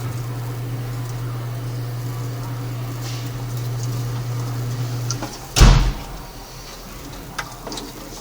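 A steady low hum cuts off about five seconds in. Half a second later comes one loud knock, like a door or panel banging, followed by a couple of light clicks and rattles.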